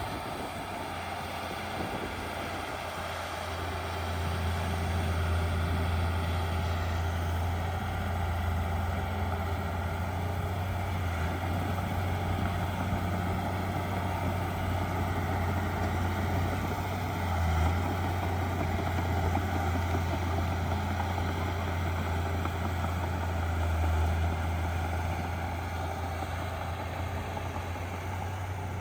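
Heavy diesel earthmoving machine's engine running steadily with a low drone, swelling briefly a couple of times.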